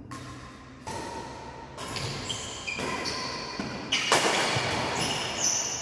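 Badminton rally in an echoing hall: sharp racket strokes on the shuttlecock about once a second, the loudest a smash about four seconds in.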